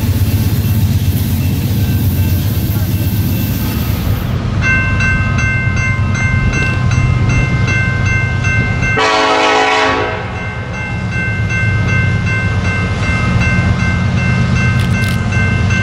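Approaching diesel freight train led by an EMD SD70ACe locomotive: a low rumble, and from about four seconds in a steady multi-note horn chord that carries on to the end, with a louder blast around the middle.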